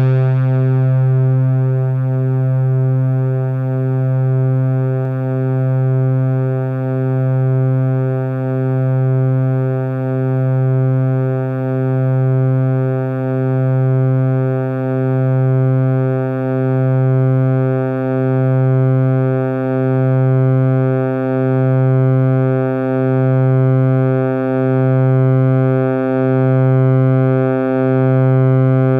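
Minimoog synthesizer holding one low, steady note rich in harmonics, its volume swelling and dipping regularly about once every second and a half as its controls are tweaked.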